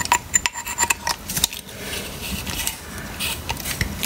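Metallic clicks and scraping as pliers grip and work a cut-out soldered copper elbow joint, with rustle from the hands handling it.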